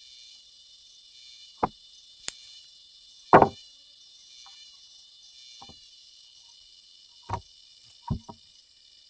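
Several irregular wooden knocks and thuds, the loudest about three and a half seconds in, over a steady chirring of insects; the chainsaw is not running.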